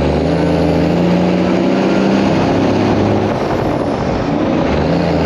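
Large vehicle engine running steadily at a constant pitch, dipping briefly about three to four seconds in and then picking back up.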